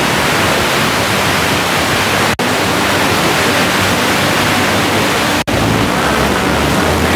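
FM radio receiver tuned between stations, giving loud, steady hiss of static. The hiss cuts out for an instant twice as the tuner steps to the next frequency.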